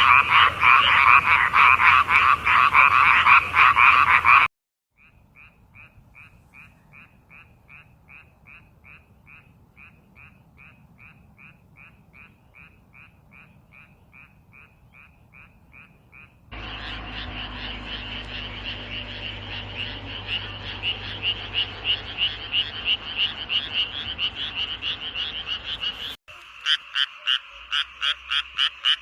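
Frogs croaking in several separate recordings cut one after another: first a loud, dense chorus, then a quieter frog repeating a short call about three times a second, then a louder chorus of pulsed calls, and near the end another frog calling in a quick, even rhythm.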